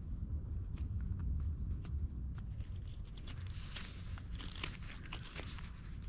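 Scattered small crackles, snaps and rustles of wood, bark and forest litter being handled and worked, over a low steady rumble.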